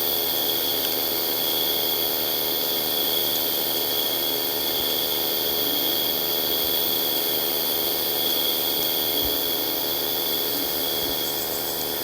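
A steady, unchanging hum with hiss, with no breaks or separate events.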